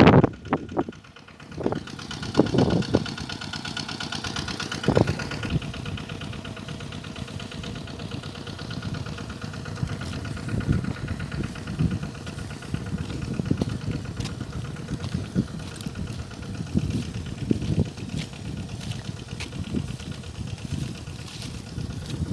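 A small engine running steadily with a low rumble. Irregular knocks and thumps sound over it, heaviest in the first few seconds.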